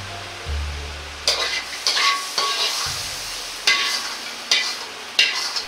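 A steel ladle scraping and knocking against a hot Chinese wok as the stir-fry is scooped out onto a plate: about six quick clattering scrapes, a couple of them ringing briefly like metal on metal, over a faint hiss of the hot sauce.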